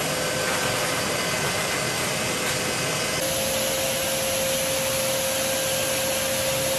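Pet grooming blower (force dryer) running steadily, blowing air through its hose over a wet Persian cat's coat: a constant rush of air with a steady hum, which shifts slightly about three seconds in.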